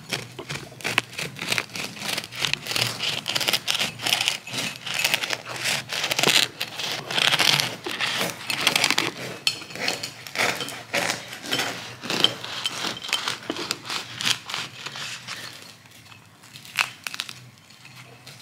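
Serrated bread knife sawing through a crusty bread roll on a plate: a rapid run of crackly scraping strokes through the crust, thinning out near the end.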